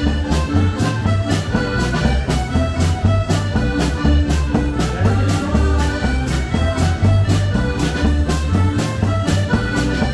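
Lively dance music with a steady, quick beat over a bouncing bass line.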